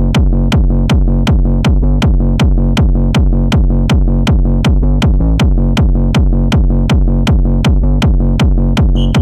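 Fast, hard electronic dance music: a heavy kick drum pounding about four times a second, each hit dropping in pitch over a deep bass. A high sustained tone comes in near the end.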